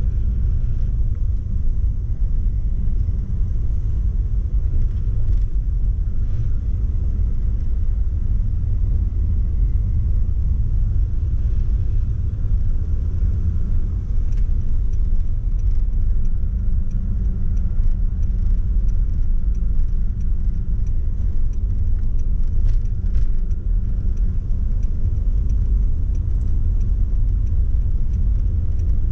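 Steady low rumble of road and engine noise heard inside the cabin of a moving Mercedes-Benz car.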